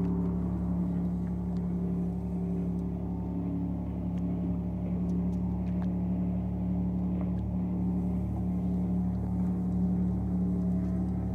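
Boat engine running steadily at an even pitch, a constant low hum.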